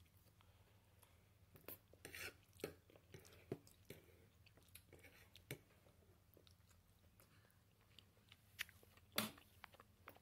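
Faint close-up chewing: scattered wet mouth clicks and smacks, a cluster about two seconds in and the loudest one near the end, over a low steady room hum.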